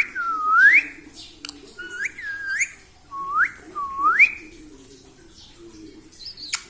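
Pet parrot whistling: six clear swooping whistles in three pairs, each rising sharply in pitch, some dipping first before the upswing.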